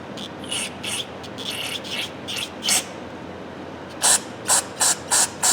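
Cleaning grease from inside a Craftsman ratchet head: soft, uneven rubbing strokes, then about a second and a half of short, loud strokes at about three a second near the end.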